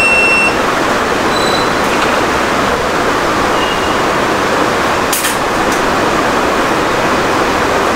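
Steady rushing air noise of a repair workshop, with a short electronic beep right at the start, two fainter beeps over the next few seconds, and a single click about five seconds in.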